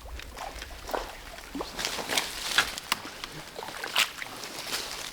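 Shallow creek water splashing and sloshing in irregular bursts as a hooked brook trout thrashes and is brought in, with the loudest splashes about two seconds in and again near four seconds.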